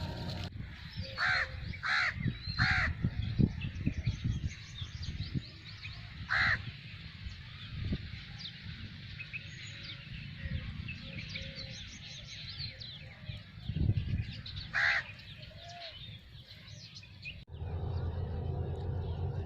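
Crows cawing outdoors: three harsh caws in quick succession soon after the start, then single caws about twice more, with smaller birds chirping faintly and low rumbling bumps underneath. Near the end the sound cuts abruptly to a steady low machine hum.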